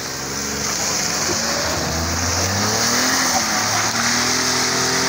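Small petrol hatchback engine (Maruti Suzuki Alto K10) revving under load as the car pushes through deep mud. Its pitch rises about two seconds in and then holds, over a steady high hiss.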